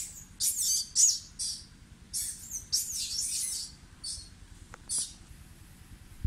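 A run of about eight shrill, very high-pitched chirping calls in quick succession, each bending in pitch, ending about five seconds in.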